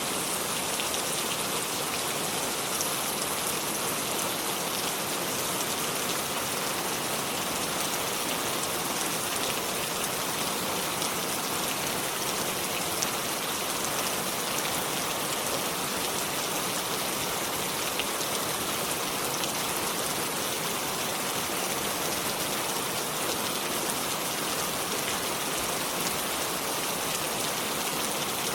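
Steady rain falling, an even hiss of drops with faint ticks of individual drops.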